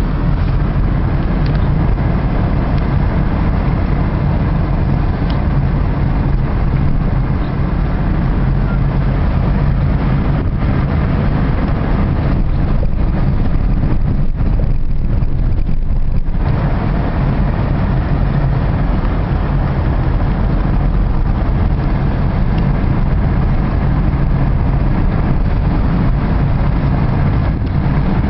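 Car driving along: engine and road noise heard from inside the cabin, a steady low rumble.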